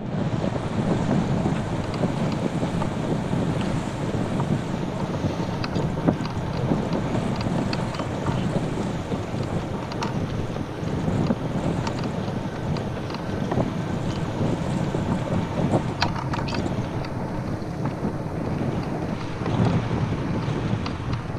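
Wind buffeting the microphone in a sailing yacht's cockpit while the boat is underway, a steady rushing noise that rises and falls a little, with a few light clicks and knocks.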